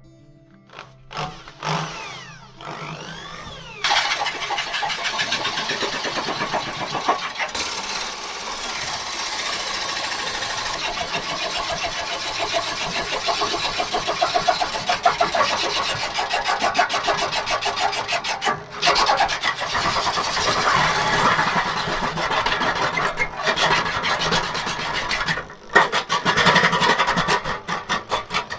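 Electric power tool running in long stretches with a rapid pulsing, after a few short spurts at the start, pausing briefly about 19 and 26 seconds in.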